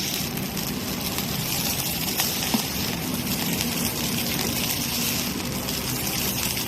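Food cooking in an electric non-stick ceramic frying pan, giving a steady hiss with a faint low hum underneath, which cuts in and out abruptly.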